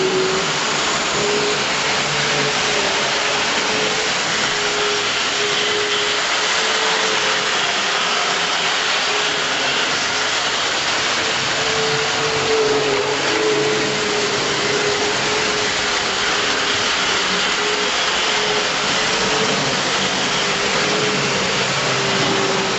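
Small electric motors of vintage Tri-ang model trains and Minic Motorways vehicles whirring steadily as they run on the track, with a whine that wavers slightly in pitch.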